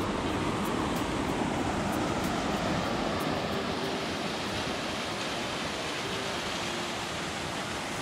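Mountain stream rushing down a rocky cascade, a steady, full sound of falling and churning water.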